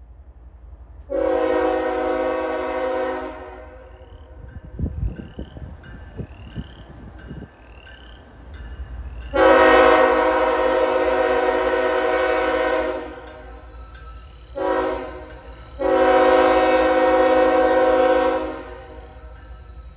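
Air horn of CSX 3090, a GE ES44AH locomotive, sounding the grade-crossing signal as it approaches: a long blast, a longer one, a short one, then a long one, several notes sounding together. Frogs chirp steadily in the background, a short rising call about once a second.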